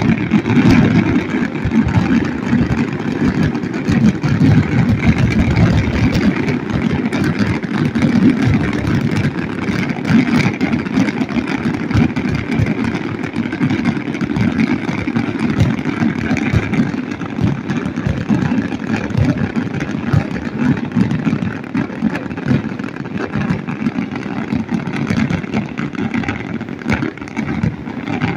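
Steady, dense low rumbling noise that flickers rapidly in level, with no distinct separate bangs.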